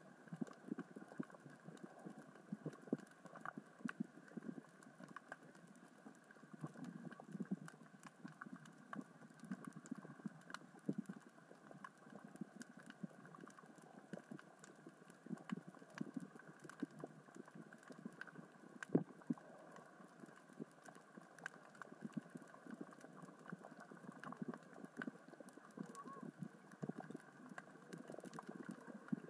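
Underwater sound of small rocks rolling and knocking together on the sea floor as the current and tide move them: a faint, irregular patter of clicks and knocks, with one sharper knock about two-thirds of the way through.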